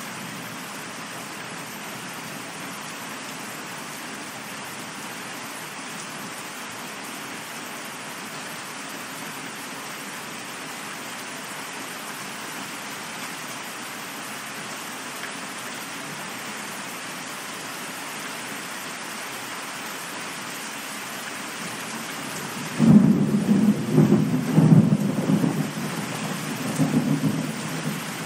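Steady rain falling, then thunder breaks in suddenly near the end, loud and rumbling on for several seconds.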